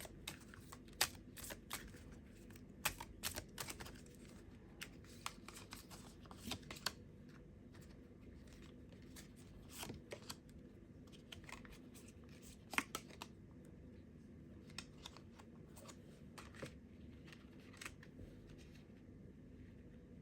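Tarot cards being shuffled and handled: a quick run of soft flicks and snaps for the first several seconds, then scattered single taps as cards are laid down.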